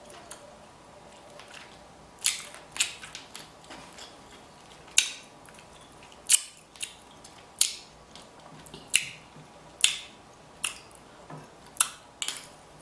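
Close-miked eating: a string of sharp, wet clicks and smacks from chewing, about one a second.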